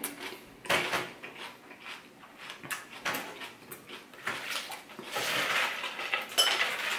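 Close mouth sounds of chewing, with scattered crunches. About four seconds in, metal tongs clink and rustle through dressed lettuce in a wooden salad bowl.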